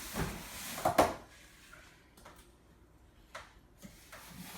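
Cardboard shipping box being opened and its packed parts handled: a scrape and a sharp knock about a second in, then a few faint taps.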